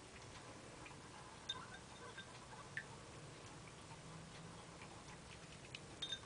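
Faint, irregular clicks and clinks as a cat paws at dry kibble in a ceramic bowl, with a few sharper ringing clinks about a second and a half in and twice near the end.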